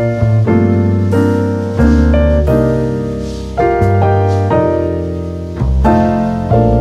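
Background piano music: struck chords over a bass line, each decaying before the next.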